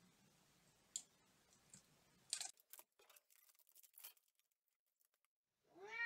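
Faint clicks, then a quick run of short crackling, crunching strokes as a kitchen knife cuts through the chocolate coating and cake layers of an alfajor. After a moment of dead silence, a cat's meow begins right at the end.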